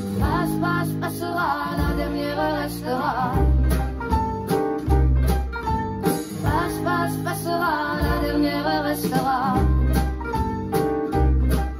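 Music from a French-language pop song between its sung lines: deep bass notes recurring every second or two under a wavering melody line, with guitar.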